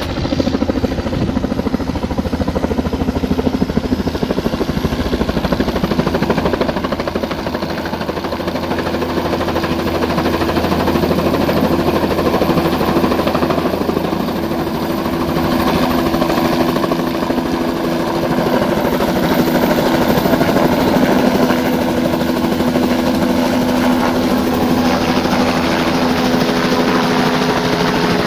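Small turbine helicopter hovering low overhead, its rotor beating rapidly and steadily over the engine's running, a little louder in the second half.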